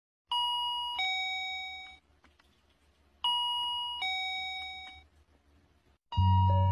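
Two-note ding-dong doorbell chime, a high note then a lower one, each ringing and fading, sounding twice about three seconds apart. Near the end, music with a heavy low beat and mallet notes starts.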